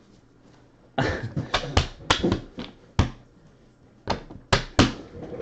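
About nine sharp, irregular taps and slaps of trading cards being handled and set down on a tabletop during sorting, starting about a second in, with a short pause in the middle.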